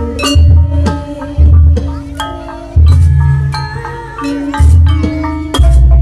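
Gamelan accompaniment for Janger theatre: struck metal keys ring in quick, interlocking note patterns over five deep, loud low strokes.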